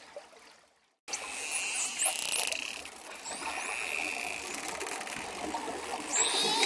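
Dolphins whistling and clicking underwater: steady high whistles, one whistle that rises and falls about four seconds in, and a wavering buzzing call near the end. The sound fades out just before a second in, then cuts back in abruptly.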